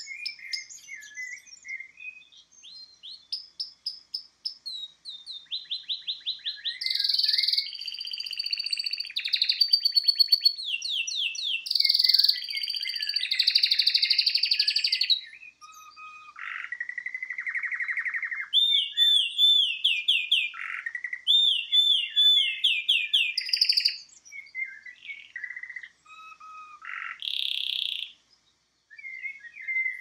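Domestic canary (Serinus canaria) in full song: a long run of rapid trills and rolls that changes phrase every second or two, with a lower, slower roll about midway and brief pauses near the end.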